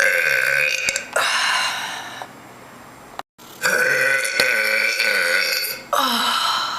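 A woman belching loudly in a row of long, drawn-out burps. The longest comes around the middle and lasts about two seconds, after a short lull.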